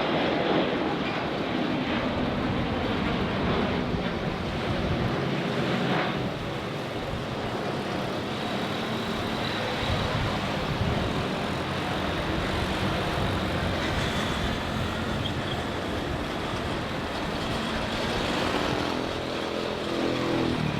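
Airbus A350-900's Rolls-Royce Trent XWB turbofans at takeoff thrust, a steady, loud jet noise from the aircraft as it takes off and climbs away.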